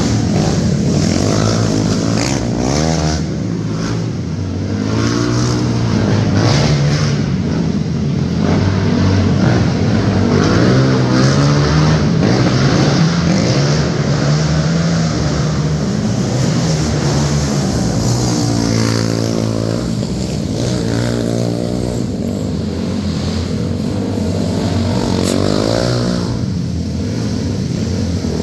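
Two racing quads' (ATV) single-cylinder engines revving up and falling off over and over as they circle a dirt oval. The pitch rises on the straights and drops into the turns.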